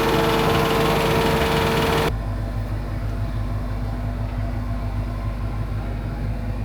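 An engine running steadily; about two seconds in the sound changes abruptly to a quieter, lower engine running with a steady low pulse.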